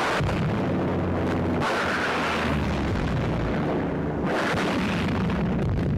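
Battle sound effects: a continuous din of explosions and gunfire over a low drone, with no break.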